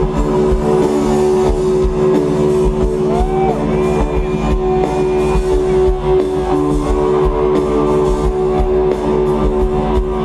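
Live rock band playing an instrumental passage through a festival PA: guitar and drum kit over a long held note, with no singing.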